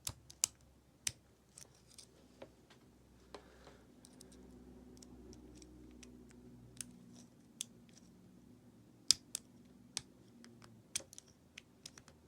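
Lock picking on an American 1100 padlock: a pick and tension wrench working the pins in the keyway, giving scattered, irregular small metal clicks and clunks as pins are tapped up.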